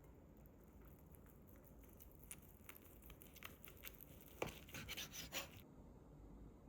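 Faint kitchen handling noises: a few light clicks and taps, then a brief cluster of sharp crinkling clicks about four and a half seconds in.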